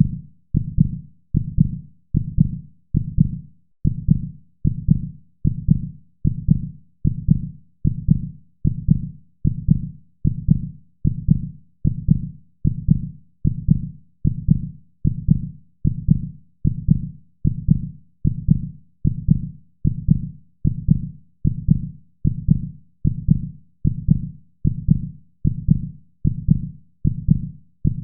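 Heartbeat sound: deep, low thumps in a steady, even rhythm, a little over one beat a second.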